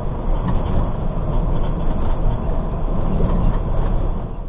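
Steady engine drone and road rumble of a semi-truck cruising on the freeway, heard inside the cab.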